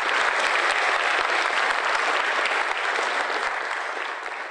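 Audience applauding, a dense patter of clapping that fades gradually toward the end.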